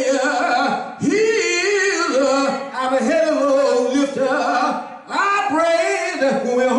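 A man preaching in a sung, chanted style (the intoned 'whoop' of a Black Baptist sermon's climax), with held, pitched phrases broken by short pauses for breath.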